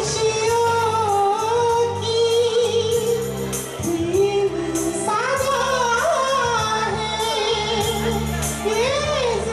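A man singing live into a microphone over a backing track, holding long, high wavering notes in a high voice.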